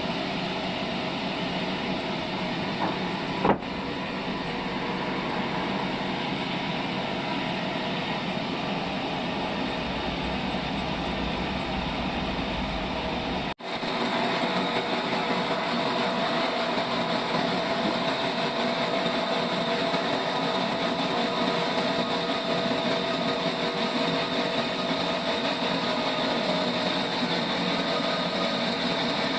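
Sawmill saw and trolley machinery running steadily. A brief knock sounds a few seconds in. There is a sudden short break near the middle, after which it runs a little louder.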